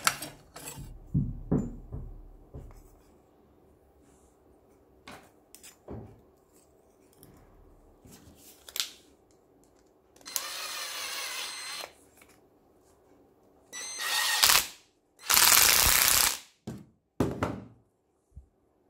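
Cordless impact driver driving the screw of a worm-drive hose clamp in a few short runs: one smooth spin of about a second and a half, then loud hammering bursts as the clamp tightens under load. A few knocks and clicks in the first seconds.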